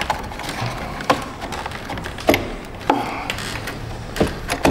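Hard plastic engine-bay parts around a Ford Escape's battery being worked loose by hand: scraping and rubbing with four sharp clicks about a second apart as a plastic piece is pried and slid up past its retainers.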